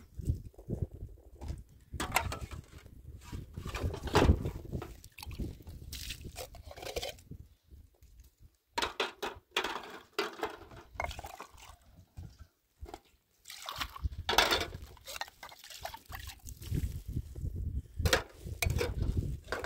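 Dishes being washed by hand: water splashing and running off a metal tray, with irregular clinks and clatters of metal cups and plates being rinsed and stacked.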